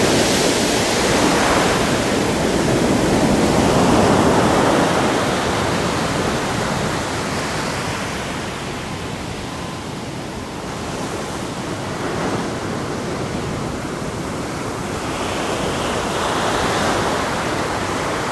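Ocean surf breaking and washing on the shore at Monastery Beach, a steady rushing of water that swells loudest a few seconds in, eases off midway and builds again near the end.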